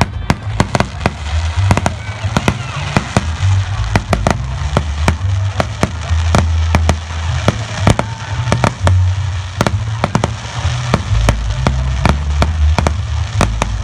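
Fireworks going off in a rapid, irregular string of sharp bangs, about three a second, over a heavy low rumble.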